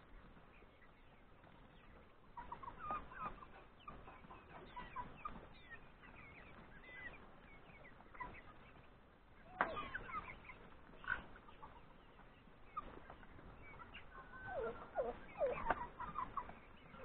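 Chickens clucking, with scattered short calls. One louder call comes about ten seconds in, and a busier run of calls near the end.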